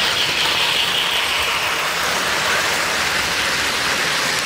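Three-rail O-gauge model trains running on the layout track, a steady metallic rattle of wheels and geared drive as a train passes close by.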